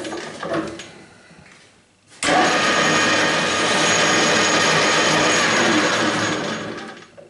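Metal lathe switched on about two seconds in, its spindle and headstock gearing running at a steady level with a faint high whine, then switched off and running down just before the end. A few light clicks at the start come from the chuck being handled.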